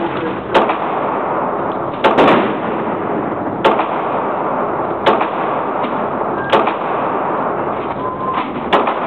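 Pistol fired six times in an indoor shooting range, a shot about every one and a half seconds.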